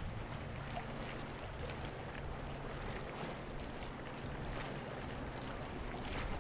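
A Type 23 frigate's engines humming low and steady as the ship passes, with wind and small waves lapping.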